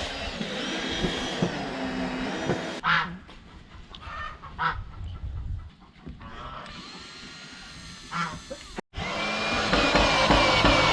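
Domestic goose honking repeatedly, with a few sharp knocks between the calls.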